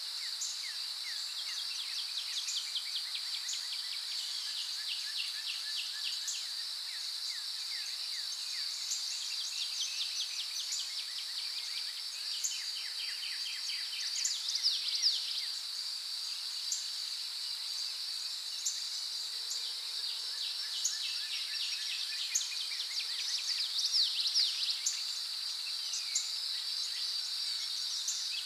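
Nature ambience: insects droning steadily at a high pitch, with many short chirping calls layered over the drone. The chirps grow louder and denser twice, about halfway through and near the end.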